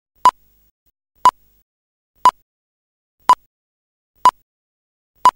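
Countdown leader beeps: six short beeps of the same pitch, one each second, ticking off the numbers of the countdown.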